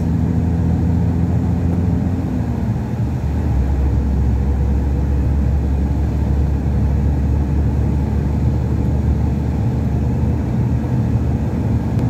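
Truck's diesel engine and road noise heard from inside the cab while cruising on the highway, a steady low drone whose engine note drops slightly between two and three seconds in.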